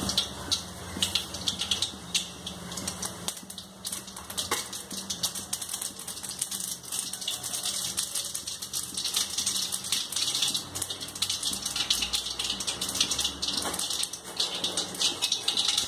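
Mustard seeds popping and spluttering in hot oil, a dense rapid crackle of small pops: the tempering stage, as the oil is hot enough for the seeds to burst.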